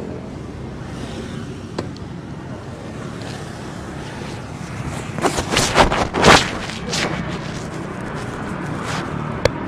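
Steady vehicle engine noise, with a run of loud, sudden scraping noises about five to seven seconds in and a sharp click near the end.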